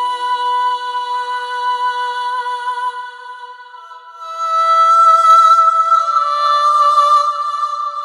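Sampled solo vocal from the Cinematic Alpha Vocals Kontakt library singing long held notes. One high note fades out about three seconds in. A higher, louder note comes in at about four seconds and dips slightly in pitch partway through.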